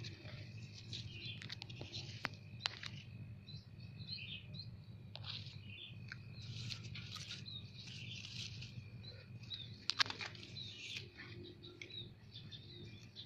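Small birds chirping and twittering over a low, steady background rumble, with a few sharp clicks, the loudest about ten seconds in.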